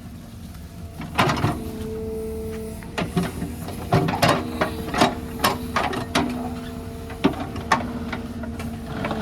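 Tata Hitachi Shinrai backhoe loader working: steady engine and hydraulic whine that shifts in pitch, with a run of sharp knocks and clanks starting about a second in.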